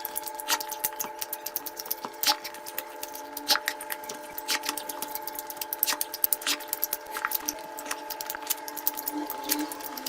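Close-up eating: wet chewing and lip smacking with many sharp, irregular clicks and crunches, over a steady faint hum.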